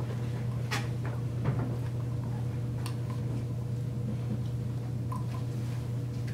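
Classroom room tone: a steady low hum with a few scattered light clicks and knocks from the room.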